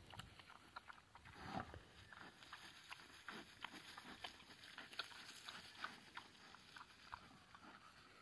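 Pig munching acorns off the ground: faint, irregular crunches and clicks as it chews, with a somewhat louder, lower sound about a second and a half in.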